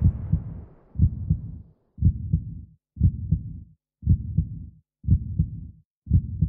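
A low thumping beat: a group of two or three deep thumps repeats about once a second, evenly spaced.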